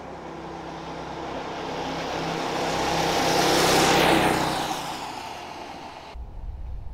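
Home-built go-kart's small engine driving past. The engine note grows louder as it approaches and peaks about four seconds in, then drops in pitch and fades as it moves away. The sound cuts off suddenly about six seconds in.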